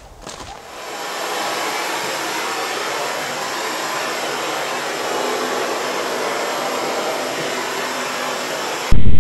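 Hose-fed gas torch burning with a steady hiss, building up over the first second and then holding level. Near the end it cuts off abruptly into a much louder low rumble.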